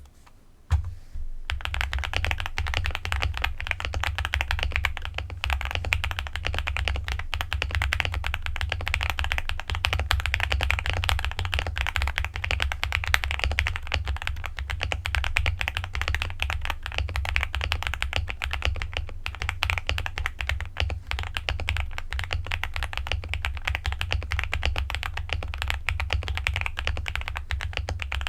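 Continuous fast typing on a spring-mounted Akko SPR 75 mechanical keyboard with linear Akko V3 Cream Yellow Pro switches and ABS double-shot keycaps, foam-filled and tape-modded, giving a dense run of soft, muted key clacks that starts about a second in. A low steady hum sits underneath.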